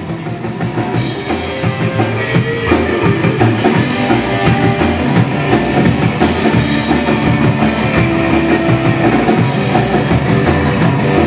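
Band music with a drum kit keeping a steady beat under guitar.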